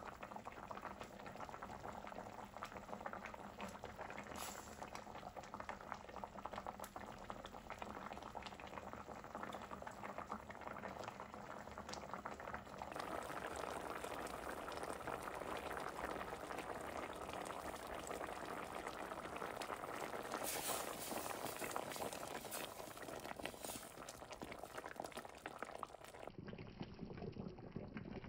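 Fish curry boiling in a stainless steel pot, a steady bubbling with small pops, a little louder about halfway through.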